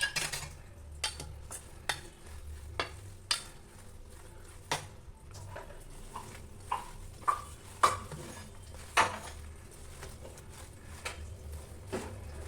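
A metal spoon stirring and scraping in a cooking pan, giving about a dozen irregular clinks and knocks against the pan, with food sizzling faintly underneath.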